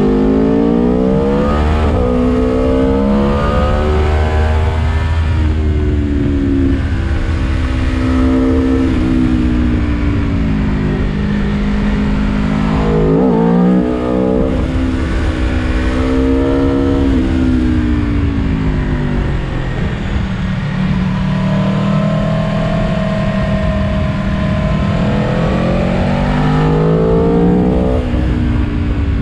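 Aprilia Tuono V4 Factory's V4 engine heard from the rider's seat, its revs climbing and dropping again and again through accelerations and gear changes, with a quick rev flare about 13 seconds in and a steadier cruise later on. A constant rush of wind runs under the engine.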